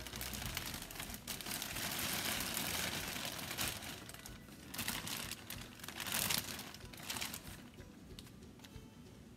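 Clear plastic packaging bag crinkling and rustling as it is pulled open and handled by hand. It comes in waves, loudest about six seconds in, and quieter toward the end.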